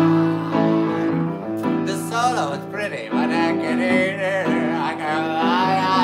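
Acoustic guitar and upright piano playing an instrumental passage of a slow, jazzy song, with a wordless voice wavering over the chords from about two seconds in.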